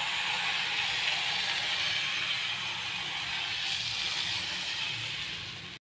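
Appam batter sizzling in a hot nonstick appam pan as the pan is swirled over the gas flame to spread it: a steady hiss that cuts off suddenly near the end.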